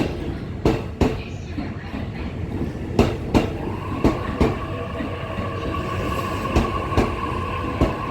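Electric commuter train rolling slowly, its wheels clacking over rail joints and points at uneven intervals. A steady high whine joins about four seconds in.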